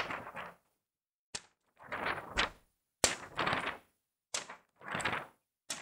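A pen struck against a sheet of paper several times, each strike a sharp snap with a short papery rustle after it, used as a homemade imitation of gunshots.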